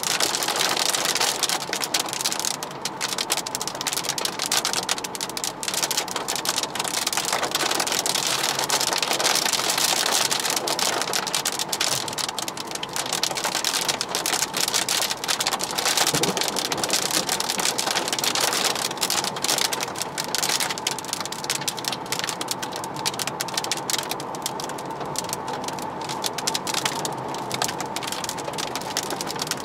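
Rain hitting the roof and windscreen of a moving car, a dense steady rush of drops over wet-road tyre noise, heard from inside the cabin.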